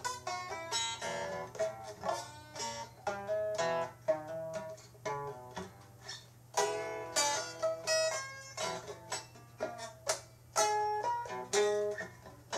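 Plucked-string music: a quick run of picked notes, each dying away fast, over a steady low hum.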